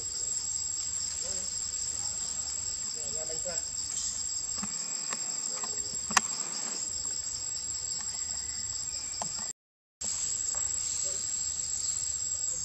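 Steady high-pitched drone of forest insects, with one sharp click about six seconds in. The sound cuts out completely for about half a second near the end.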